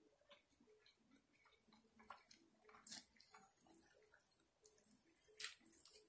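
Soft chewing and lip smacks from eating rotisserie chicken, with the crackle of roasted chicken being torn apart by hand; the two sharpest crackles come about three seconds in and near the end.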